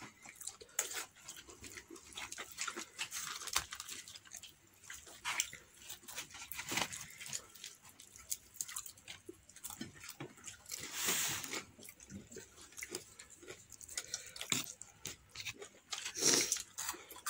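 Close-up eating sounds: crispy fried chicken torn apart by hand and chewed, with many small crackles and clicks. There are two louder rustling bursts, one about two-thirds of the way through and one near the end.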